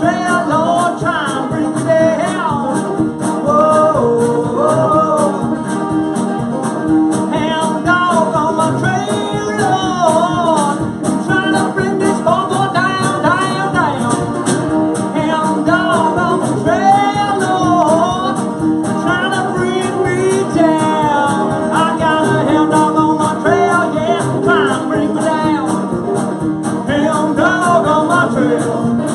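A country band playing live: strummed acoustic guitars and electric guitar over a steady drum beat, with voices singing the melody.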